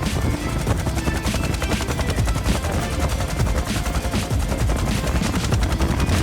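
Bell UH-1 Huey helicopter in flight: the rotor's rapid, continuous thumping over the engine's noise.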